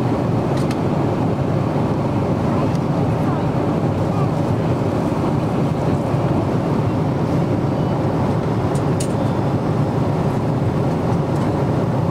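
Steady cabin noise of a Boeing 777-300ER in flight, heard from a window seat: a constant low roar of airflow and engines. A couple of faint clicks, about a second in and again near nine seconds.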